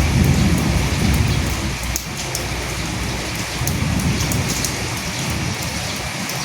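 Steady rain falling on dead leaves, a dense hiss with scattered sharp drop ticks. A low rumble swells in the first second or so and again around the middle.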